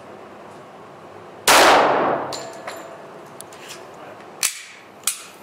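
A single shot from a Glock 41 .45 ACP pistol about 1.5 s in, echoing and dying away over about a second. It is followed by a few light metallic clinks and two sharp clicks near the end.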